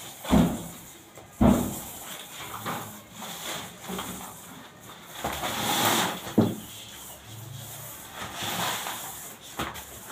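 Paint roller on an extension pole working over a wall, with a few sharp knocks and thumps, the loudest about half a second and a second and a half in and another about six and a half seconds in.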